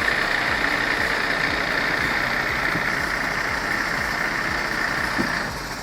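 MAN TGA 480 timber truck's diesel engine running steadily while its mounted loader works logs, with a steady high-pitched hiss over the engine note.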